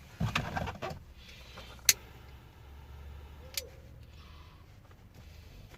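A short, low cooing sound near the start, then two sharp clicks about a second and a half apart from a hand tool worked on a cable end, the first being the loudest, over a steady low hum.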